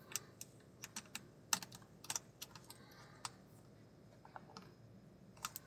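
Faint, irregular small clicks and ticks of a Falcam F22 quick release plate's screw being tightened with its small key: metal key and screw knocking and clicking as it is turned. A few slightly louder clicks come about one and a half seconds in, at two seconds, and near the end.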